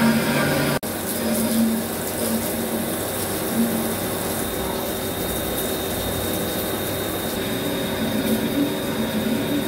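Vertical lathe turning a cast iron turbo compressor housing under a steady spray of cutting coolant, a continuous hissing, splashing wash over the machine's running hum. The sound breaks off for an instant about a second in and carries on.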